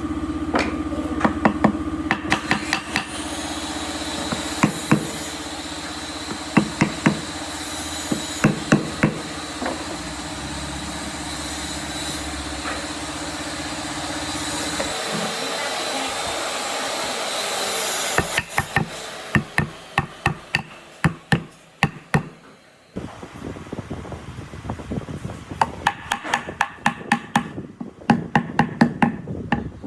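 A power tool running steadily in the workshop for about fifteen seconds, with scattered knocks on wood; after it stops, a run of sharp knocks or hammer taps, about two or three a second.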